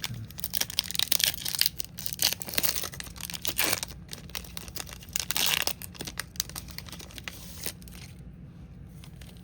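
Trading card pack wrapper being torn open and crinkled, a dense crackling rustle for about six seconds, then fading to a few faint ticks as the cards are handled.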